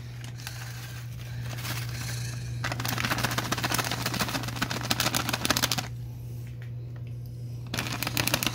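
Spice packet crinkling and rattling as powder is shaken out of it onto raw mince: a fast run of fine clicks lasting about three seconds, then a shorter run near the end, over a steady low hum.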